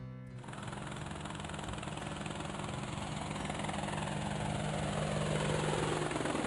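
Helicopter sound effect: steady rotor and engine noise with a low hum, growing gradually louder as the helicopter flies in.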